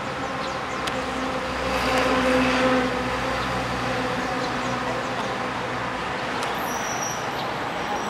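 Road traffic: a motor vehicle passing, its engine hum swelling about two seconds in and fading away by about six seconds, over steady traffic noise.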